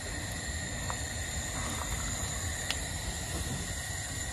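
Steady low rumble with a faint high-pitched whine from a pot of vegetable sauce and chicken stock simmering on the stove while it is stirred with a silicone spatula; two faint light ticks about a second and just under three seconds in.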